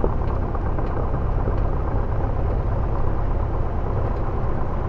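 Light aircraft's piston engine running steadily, a dense low rumble with a fast even pulse.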